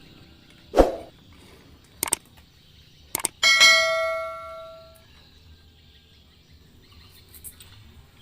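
Tableware being handled: a dull knock, a couple of sharp clicks, then a ringing clang from a struck dish, which fades away over about a second and a half.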